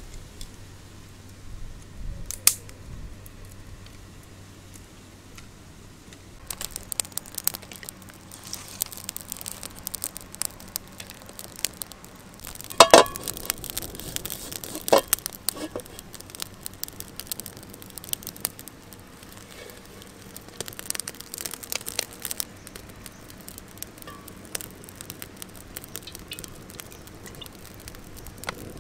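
Wood fire crackling and popping under a wok, an irregular run of sharp snaps that starts about six seconds in. Two louder knocks come about halfway through.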